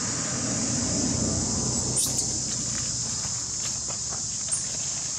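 Steady high-pitched drone of insects in the surrounding woodland, with a short sharp sound about two seconds in.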